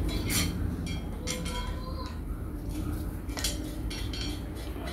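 Irregular light metallic clinks and taps as a metal pitman rod, a screw and a screwdriver are handled at the hub of a treadle sewing-machine stand's flywheel. Several of the clinks ring briefly.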